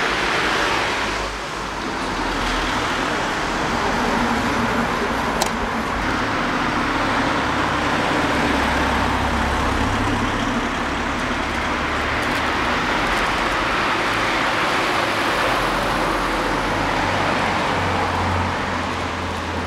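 Street traffic: cars driving past, a steady rush of tyre and engine noise with low rumbles that swell and fade as each car passes.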